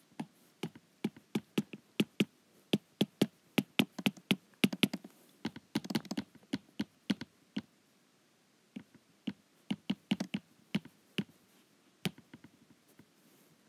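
Stylus tip tapping on an iPad's glass screen while writing capital letters by hand: a quick, irregular run of sharp clicks. There is a pause of about a second midway, and the clicks tail off near the end.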